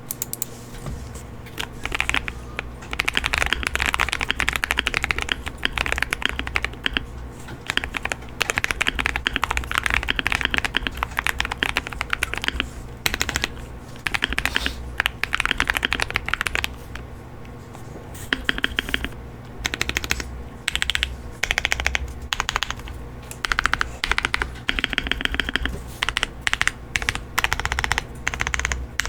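Typing on a custom-built MW65/Cheap68 mechanical keyboard: fast runs of keystrokes in bursts of a few seconds, broken by short pauses.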